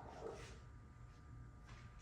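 Near silence: faint room tone with a low hum and a couple of faint soft noises.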